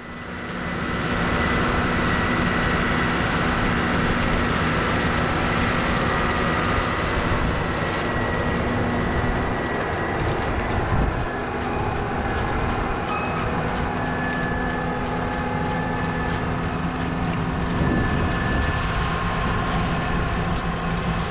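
Cat Challenger 55 tracked tractor's diesel engine running steadily under load, pulling a disk harrow and packer through tilled ground, fading in at the start.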